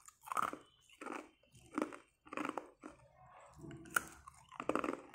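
Hard ice being crunched and chewed between the teeth, a sharp crunch about every three quarters of a second.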